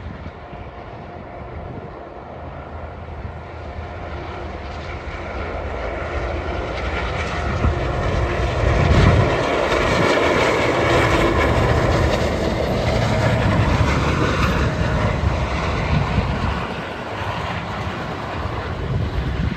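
GO Transit bilevel commuter train passing on diesel power: engine rumble and wheel-on-rail noise build steadily as it approaches, are loudest from about eight to fifteen seconds in, then ease off as it moves along.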